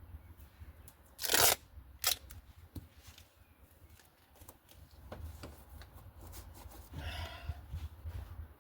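Adhesive tape being pulled off the roll and torn: a sharp rip about a second in, a shorter one soon after, and a longer buzzy unrolling near the end, with small handling clicks between.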